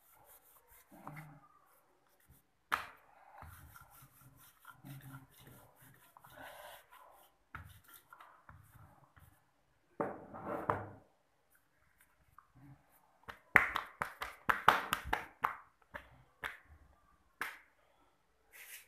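Wooden rolling pin rolling out dough on a floured worktop, then hands pressing and rubbing the dough flat, with scattered light knocks and clicks, several in quick succession past the middle.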